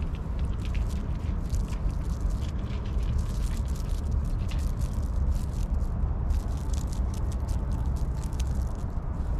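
Light rustling and crackling of a foxtail grass stem as a kitten bites and bats at it, with many quick small clicks over a steady low rumble.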